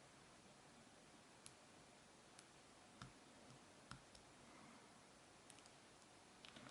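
Faint, scattered clicks of a lock pick on the wafers of an Illinois double-wafer padlock held under a tension wrench, about six spread over several seconds, with near silence between them.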